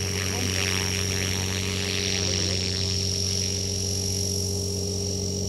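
Quick Japan EP8 500-size electric RC helicopter flying: a steady rotor hum with a thin, high electric-motor whine over it, holding one pitch.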